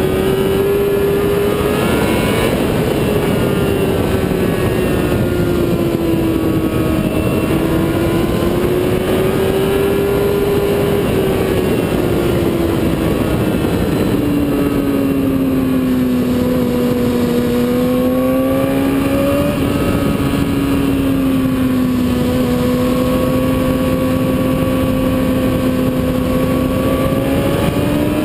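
Motorcycle engine at speed on a racetrack, heard from an onboard camera under heavy wind noise. The engine note eases lower through the middle, holds low for a long stretch, then climbs again near the end.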